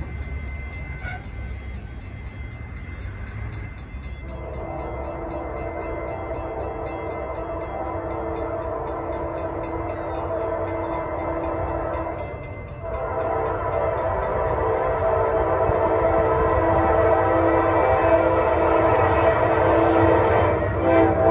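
Norfolk Southern AC44C6M diesel locomotive's multi-chime air horn sounding long blasts: one from about four seconds in, a brief break, then another that breaks again near the end. Underneath is the low rumble of the approaching train, growing steadily louder.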